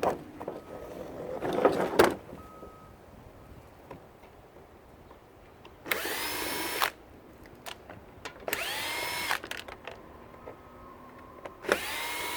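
Power drill driving out screws in three short runs, each a whine that rises quickly in pitch and then holds steady for about a second. Knocks and rattling of plastic parts in the first two seconds.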